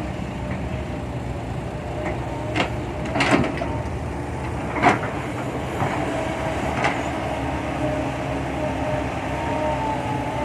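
Kobelco SK120-5 excavator's Isuzu turbo diesel running steadily while digging, with a hydraulic whine that wavers in pitch and a few sharp clanks, the loudest about three and five seconds in.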